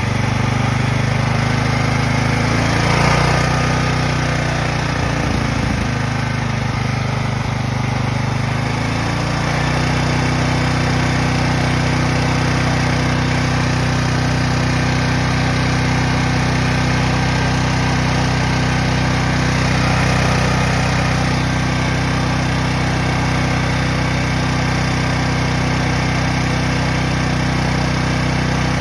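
Briggs & Stratton Storm Responder 6250 portable generator engine running on propane after a tri-fuel conversion. Its pitch wavers unevenly for the first several seconds, then settles into a steady run about nine seconds in.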